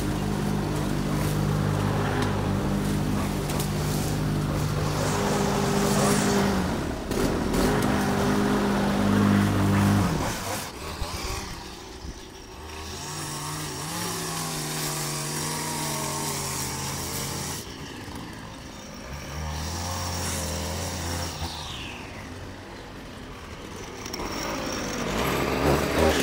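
Lawn mower engine running, loud and steady for about ten seconds, then suddenly quieter with its pitch shifting up and down, and growing louder again near the end.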